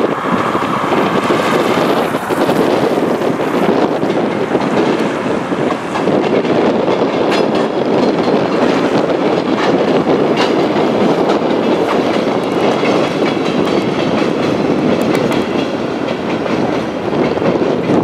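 DR1A diesel multiple unit passing over a bridge: a steady running and rolling noise, with a scatter of clicks from the wheels in the middle stretch.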